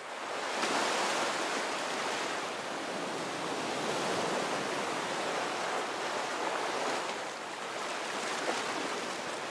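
A steady rushing noise, fading in over about the first second.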